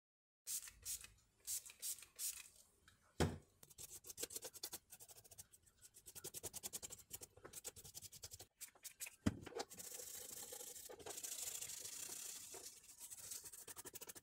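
Toothbrush scrubbing a cordless phone handset's circuit board, the bristles rasping back and forth in quick strokes as grime is cleaned off the board. Two sharp knocks stand out, one a few seconds in and one past the middle.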